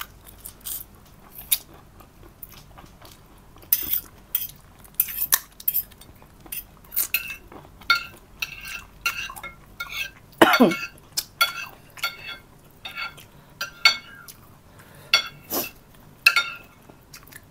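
Spoon and fork clinking and scraping against a plate while eating, in many light, irregular clinks. A short falling voice sound comes about ten seconds in.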